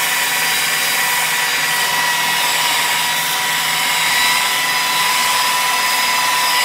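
Hitachi rotary polisher running steadily at about 1,400 rpm, a steady motor whine over the hiss of a denim pad with compound buffing a car's painted panel to level orange peel.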